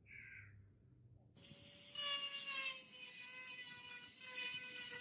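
Handheld rotary tool with a small sanding drum starting up about a second and a half in and running at high speed: a steady high whine that drifts slightly lower in pitch, sanding inside the eye of a steel hammer head.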